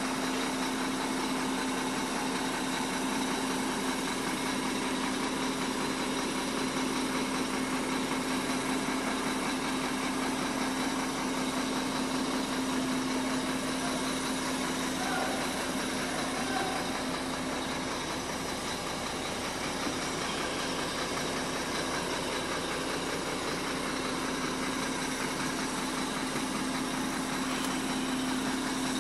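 Diesel engine of a Sinotruk Howo Max 400 hp tractor truck idling steadily, heard from inside the cab, with a constant hum.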